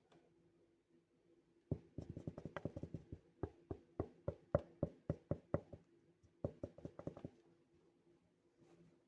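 Knocking on a hard surface. After a quiet second and a half comes a fast flurry of knocks, then slower single knocks about three a second, and another short run about six and a half seconds in. A faint steady hum sits underneath.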